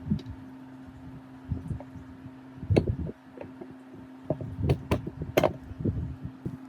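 Irregular knocks and sharp clicks of parts and tools being handled in workshop restoration work, several close together near the middle, over a steady low hum.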